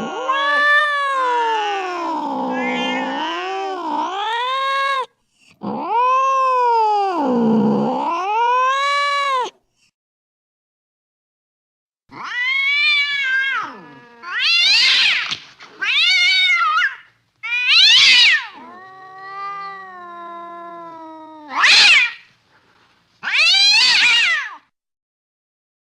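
Cat caterwauling: two long, wavering yowls that sink and rise again in pitch, then after a short pause a run of shorter, higher-pitched yowling cries.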